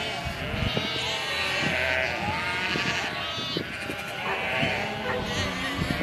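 A large flock of domestic sheep bleating, many calls overlapping at once.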